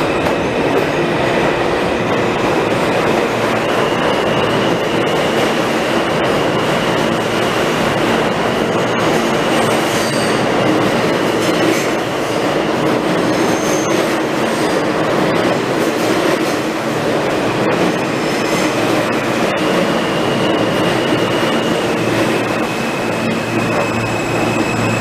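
New York City subway train running into the station and past along the platform: a loud, steady rumble of steel wheels on rail. A thin, high wheel squeal rides over it and shifts pitch a few times.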